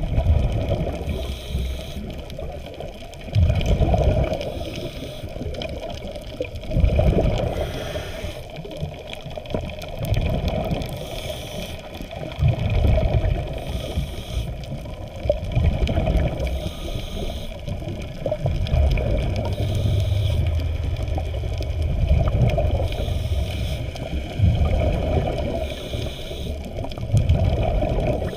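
Underwater water noise picked up by a submerged camera: a steady low rush of moving water that swells about every three seconds.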